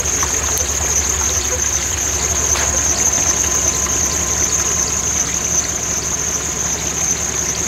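Jeep Grand Cherokee ZJ's engine running steadily at low revs as it crawls over wet rocks, with water trickling.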